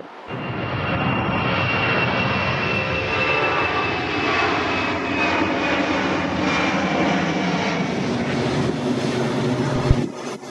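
Boeing C-17A Globemaster III's four turbofan engines as the jet climbs out after takeoff. It is a loud, steady rumble with a high whine that slowly drifts lower in pitch, and it ends abruptly near the end.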